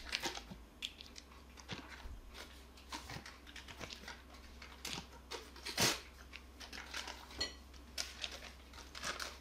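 Foil wrapper of a shortening stick crinkling and rustling as it is peeled off by hand, with scattered light clicks and taps and one sharper tap a little past halfway.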